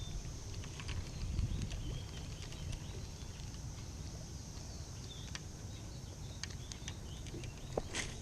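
Open-air ambience on a lake: a steady low rumble with scattered small clicks and a few faint, brief bird chirps, and one sharper click near the end.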